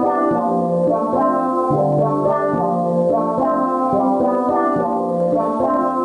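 Synthesizer music played through a TPA3116D2 class-D amplifier module and its speaker, a steady run of pitched notes in a regular rhythm; it mostly drowns out the amplifier's hiss.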